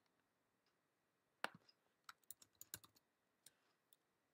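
Faint typing on a computer keyboard: a scattered run of about eight light keystroke clicks, starting about a second and a half in and bunched together in the middle.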